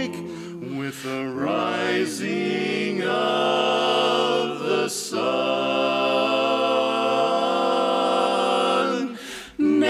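Four-part men's barbershop quartet singing a cappella in close harmony. The chords slide and shift for the first few seconds, then settle into a long held chord, with a brief break about five seconds in and a short gap for breath near the end.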